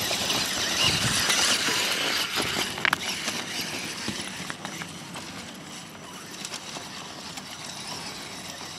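Radio-controlled trail truck working over rough ground: a rustling scrabble with scattered sharp clicks and knocks, loudest in the first three seconds.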